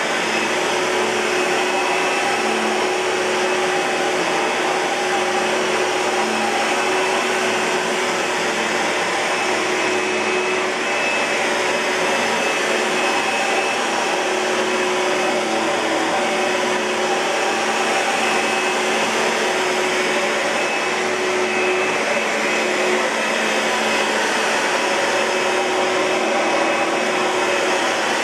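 Oreck Magnesium LW100 lightweight upright vacuum cleaner running steadily, an even motor whine with a constant pitch.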